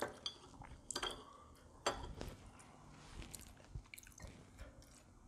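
Faint, scattered mouth sounds of eating and drinking: swallows from a beer bottle and quiet chewing, heard as a dozen or so soft, separate clicks and smacks.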